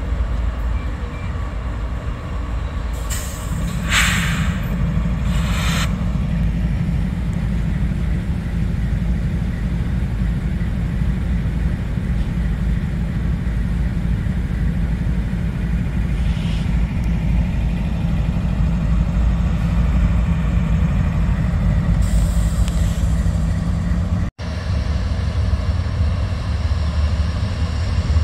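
Freight train running, with a steady low diesel drone and rumble. Three short hisses of air come about three to six seconds in, and a fainter one near the end.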